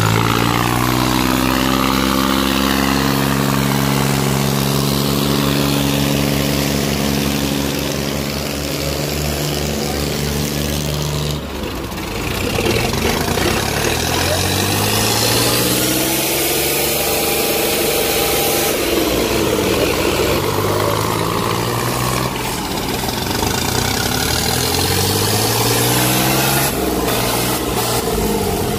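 Diesel tractor engines running: a steady engine note for roughly the first eleven seconds, then after a break a John Deere 5050 D's diesel revving up and down, its pitch rising and falling repeatedly.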